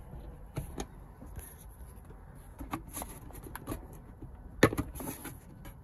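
Plastic trim cover around a Tesla Model S rear-view mirror being pulled down by hand against its retaining clips: scattered light plastic clicks and rubbing, with one sharp click about four and a half seconds in.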